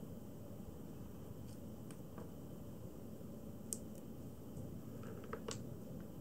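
A kitten pawing and biting at a cat scratcher: a few small sharp clicks and taps of claws and teeth, the loudest near the middle and a quick cluster about five seconds in, over a steady low room hum.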